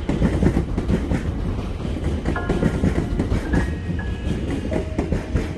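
SNCB electric-hauled double-deck passenger train passing close by, a steady low rumble with rapid clattering of wheels on the rails. Soft piano notes sound over it from about two seconds in.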